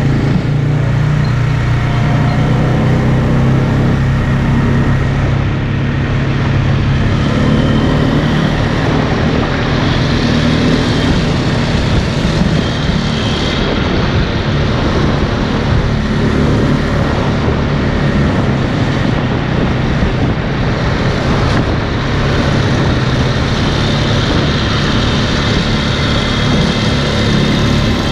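ATV engine running steadily while under way, heard from the rider's own quad, with a constant haze of wind and ride noise over it.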